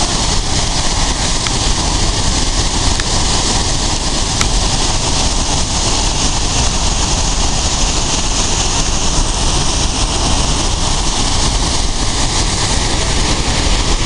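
Wide river waterfall close by: a loud, steady rush of falling water that does not let up.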